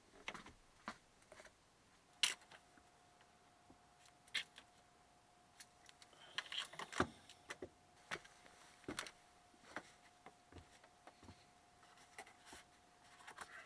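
Scattered light knocks and taps as floor panels are handled and set into the wooden batten frame of a van floor, the sharpest about two seconds in and about seven seconds in. A faint steady high hum comes in about two seconds in and stays.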